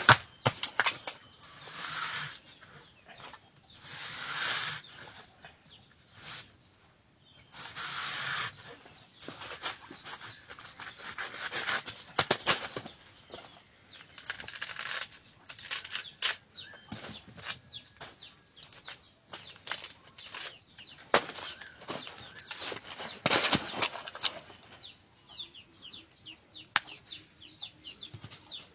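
Layers of a felled banana trunk's fibrous leaf sheaths being peeled off by hand. Each layer gives a second or so of crisp tearing and crackling, with a few sharp snaps in between.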